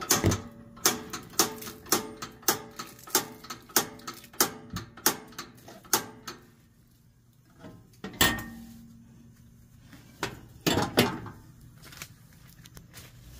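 A knife chopping on a cutting board: about a dozen sharp knocks at roughly two a second, each with a short ringing tone. It stops about six seconds in, followed after a pause by a heavier knock and a short cluster of knocks.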